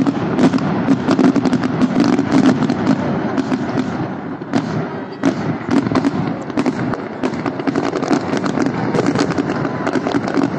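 Fireworks display: a dense, continuous barrage of exploding shells and crackling bangs, many reports a second with no pause.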